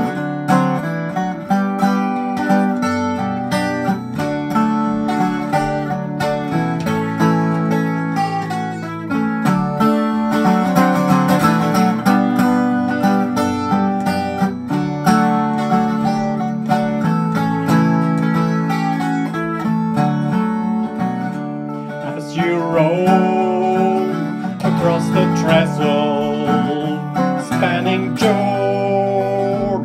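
Instrumental break in a country gospel song, played live, with acoustic guitar picking the melody over steady chords.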